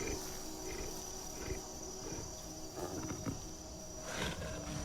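Wild animal growls and grunts, fairly faint, over a steady high insect drone in jungle ambience.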